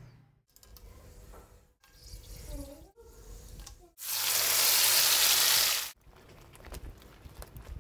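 Spice paste poured into hot oil in a nonstick pan: a loud, steady sizzle for about two seconds that starts and cuts off abruptly. Quieter frying and a few spatula clicks come before and after it.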